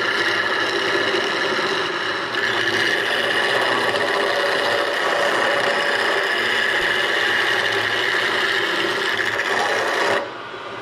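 Wood lathe turning a wooden dowel while a hand-held turning chisel cuts it, a steady scraping, rasping cut over the lathe's running. Near the end the cutting stops suddenly and only the quieter running of the lathe remains.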